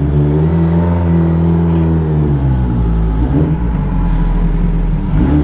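Kawasaki ZX-10R inline-four with an aftermarket Arrow exhaust, running at low revs in first gear. The engine note rises and falls with small throttle openings as the bike creeps forward.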